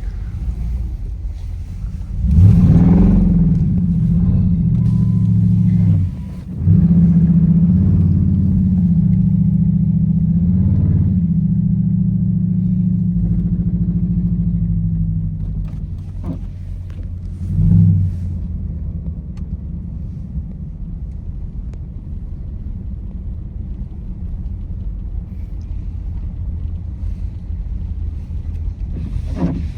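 Car engine revving hard in two long bursts, its pitch swinging up and down, then dropping back to a lower steady run with one short rev near the end.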